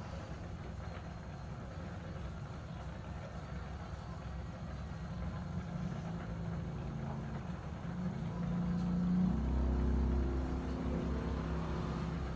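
Steady low rumble, joined about halfway by a pitched engine-like hum that grows louder around three-quarters of the way in.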